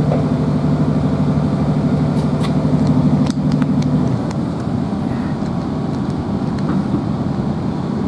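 Inside a moving Class 165 diesel multiple unit: the underfloor diesel engine drones steadily under power, then its note drops away about four seconds in, leaving the rumble of the train rolling on the rails. A few sharp clicks come between about two and four seconds in.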